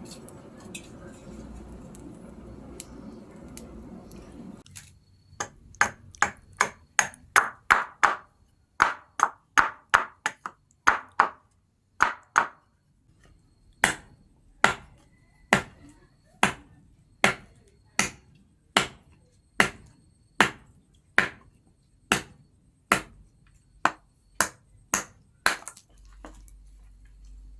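Hammer blows on hot steel at an anvil, forging a knife blade, each blow ringing. After a low rushing noise for the first few seconds, a fast run of blows lasts about eight seconds, then after a short pause a slower steady beat of about one blow a second goes on and stops shortly before the end.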